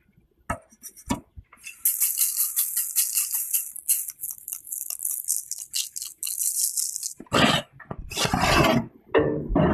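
Granulated sugar being shaken through a small metal mesh strainer onto buttered bread fingers: a dense, fast rattling hiss lasting about five seconds, after two short clicks. From about seven seconds in come louder, fuller rustling and scraping bursts.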